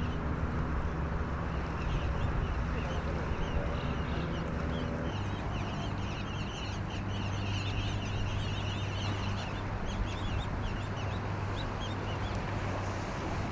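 A large flock of small birds calling in flight, a dense chatter of short high chirps, over a steady low hum.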